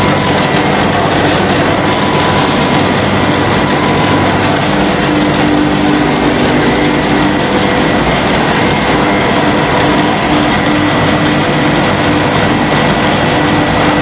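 Rice-husk-fired steam boiler plant running: a loud, steady machine drone with several steady hum tones on top.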